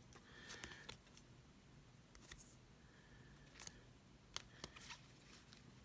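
Faint handling of baseball cards: a few soft clicks and short slides as cards are moved from one to the next, spread out over near-quiet room tone.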